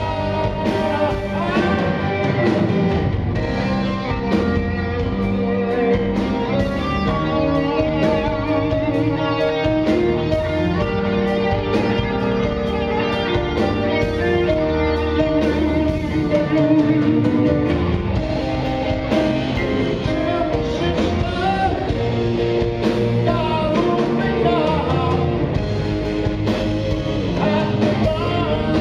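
Live rock band playing: an electric guitar lead with bending notes over keyboards, bass guitar and drums.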